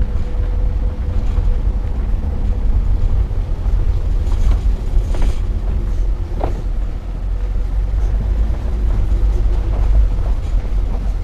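A 2009 Nissan Altima Hybrid driving over a dirt and gravel track covered in leaves: a steady low rumble of tyres and body, with a few short knocks and crunches from stones and bumps, the sharpest about six and a half seconds in.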